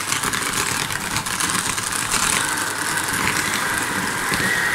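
Electric hand mixer running at high speed, its twin beaters whipping egg whites and sugar into meringue in a bowl. A faint steady whine comes in about halfway through.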